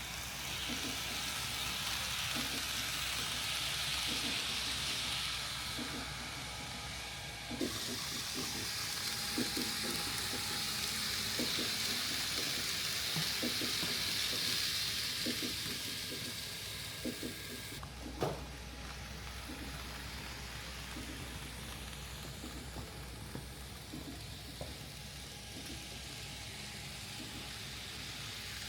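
N-scale model Shinkansen train running on layout track: a steady hiss with irregular light clicks from the wheels passing over the rail joints. The sound changes abruptly twice, about a third of the way in and again past the middle.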